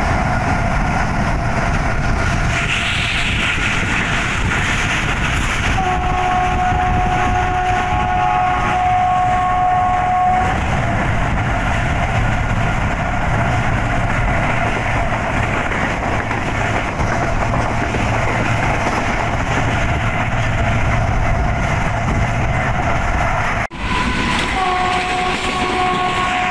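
Diesel-hauled passenger train running at speed, heard from a coach: steady wheel and rail rumble and clatter. A GE U40 diesel-electric locomotive's horn sounds one steady note for about four seconds, then again near the end.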